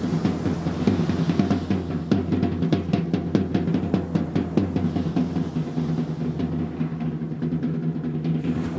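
Live percussion: drums struck in quick rolls over a steady low ringing drum tone. The strikes come thickest a couple of seconds in and thin out toward the end.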